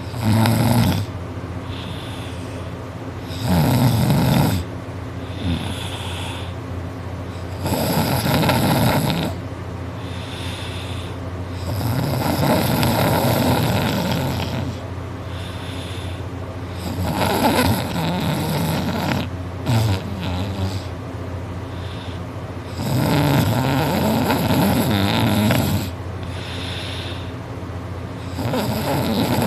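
Loud snoring in long, rasping swells, one roughly every four to five seconds and each lasting one to three seconds, with quieter breathing between them.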